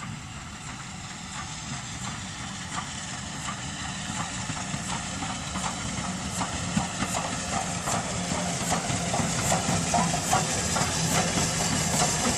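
BR Standard 5 4-6-0 steam locomotive No. 73082 Camelot working a train toward the listener, its exhaust beats coming in an even rhythm and growing steadily louder as it draws near.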